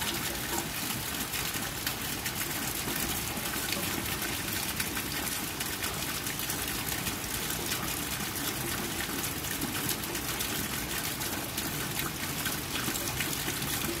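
Rain falling on wet concrete pavement and into a shallow puddle: a steady hiss of many small drop hits.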